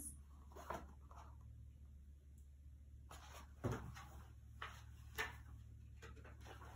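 Quiet room with a few faint, short knocks and rustles from a hardcover picture book being handled and its pages shown and turned; the loudest is a dull thump about three and a half seconds in.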